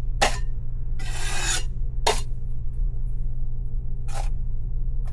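Drywall taping knife scraping over wet paper tape and joint compound, pressing the tape down into the seam. About five strokes: a short one, a longer half-second pass about a second in, another short one, then two more near the end, over a steady low hum.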